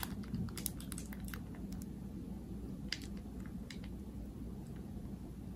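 A piping bag squeezing whipped soap frosting: faint, scattered squishes and small crinkly clicks over a steady low hum.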